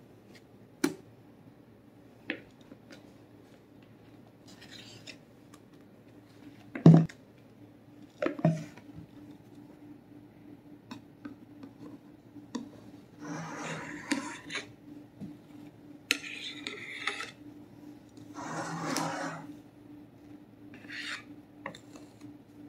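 A spoon knocks a few times against the tub and pan as Cool Whip is scooped out, the loudest knock about seven seconds in. Then a metal offset spatula scrapes in several short strokes as the whipped topping is spread over the layer in the springform pan. A faint steady hum runs underneath.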